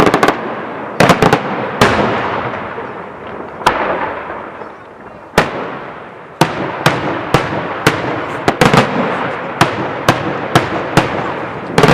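Daytime aerial firework shells bursting overhead: a string of sharp bangs, each trailing off in a rolling echo. They come a few at a time in the first half, then rapidly, two or three a second, from about six seconds in.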